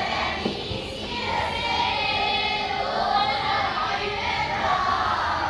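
Dance music with a group of voices singing together, holding long notes.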